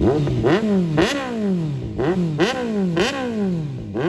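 Kawasaki Z900 inline-four engine with an aftermarket exhaust, revved in quick throttle blips, about eight of them mostly in pairs. Each blip jumps sharply in pitch and falls back toward idle.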